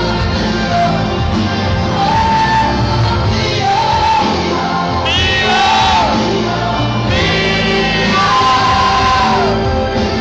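A woman singing live into a microphone over loud amplified backing music, holding long notes, two of which slide down in pitch at their ends.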